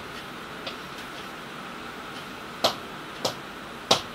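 Pen tapping and clicking on the glass screen of an interactive display during writing: one faint tap about half a second in, then three sharp taps in the last second and a half. A faint steady hum runs underneath.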